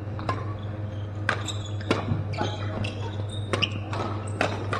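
Badminton rackets striking shuttlecocks: a run of sharp smacks, about two a second and irregularly spaced, over a steady low hum.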